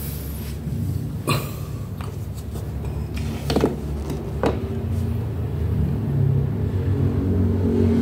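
A few sharp knocks and clinks as the metal housing of a dismantled water pump, its pipe still attached, is handled on a tiled floor. Under them a steady low engine-like rumble runs, growing louder in the second half.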